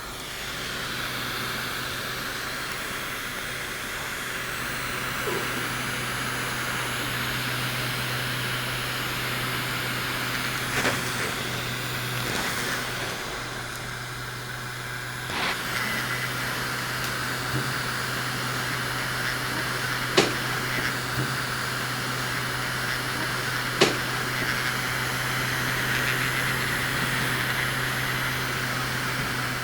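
A miniature air conditioner's small fan motor running steadily: a constant hum with a rush of air. A few sharp clicks come through at intervals.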